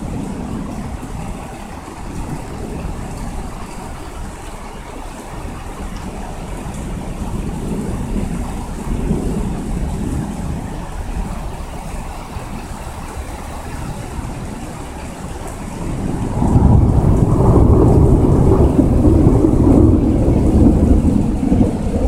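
Rain falling steadily during a thunderstorm, with low thunder rumbling. About three quarters of the way through, a much louder, long roll of thunder sets in and continues to the end.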